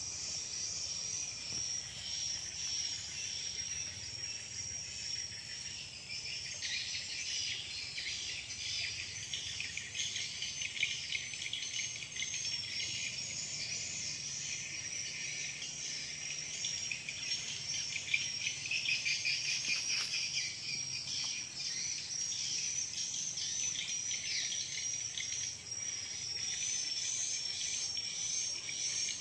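Insect chorus in woodland: a steady high-pitched trilling, joined from about six seconds in by a denser, rapidly pulsing layer that thins out again about two-thirds of the way through.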